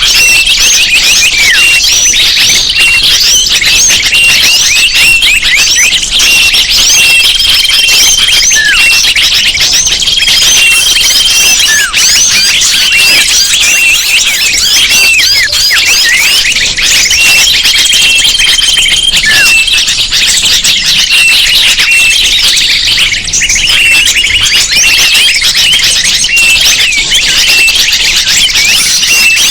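Bird-lure recording: a dense chorus of many small birds chirping and twittering at once, rapid short calls overlapping without a break. A few held, level whistles about a second long sound through it now and then.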